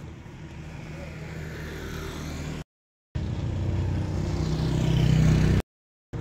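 A motor vehicle's engine running close by and growing steadily louder, as if approaching. The sound drops to dead silence twice for about half a second and comes back louder each time.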